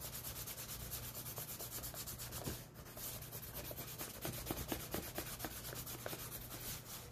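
Hand rubbing chalk into black poster board, blending it with quick, even back-and-forth strokes, with a brief pause about two and a half seconds in.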